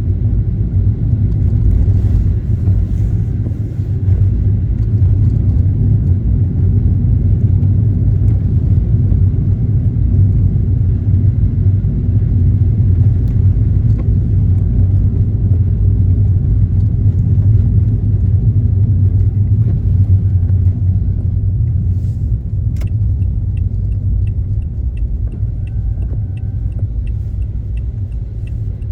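Steady low rumble of a car driving, heard from inside the car. About three-quarters of the way through, a click is followed by regular ticking about twice a second, typical of a turn-signal indicator.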